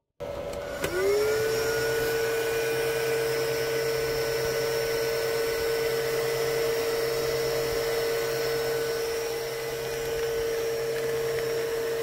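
Cooling fans of a Loyaltech ETC mining unit and its power supply starting at power-on: a whine rises for under a second, then settles into a steady high whir over a low hum.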